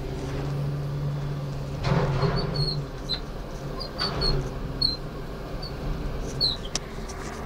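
Tugmaster terminal tractor's diesel engine running steadily while driving over a snowy quay, heard from inside the cab. Two knocks come about two and four seconds in, and short high squeaks sound several times.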